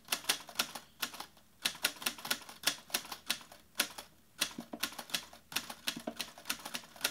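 Typewriter key clicks, used as a sound effect: sharp strikes at about four a second in irregular runs broken by short pauses.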